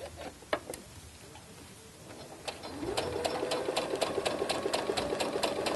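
Baby Lock sewing machine starting up about two and a half seconds in: the motor whine rises and then holds steady, with a fast, even ticking of the needle, as it runs a long gathering stitch.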